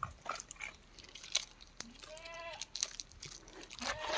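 Livestock bleating: one wavering bleat about two seconds in and a shorter one near the end, with light clicks around them.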